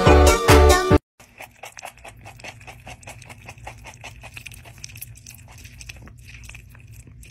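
A pet's mouth licking and nibbling right at the phone, close to the microphone: a fast run of small clicks over a low steady hum. Loud pop music plays before it and stops about a second in.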